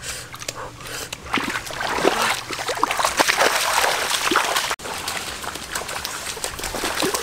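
Water splashing and sloshing, a busy run of small splashes and drips, loudest in the middle, with a brief sudden break about two-thirds through.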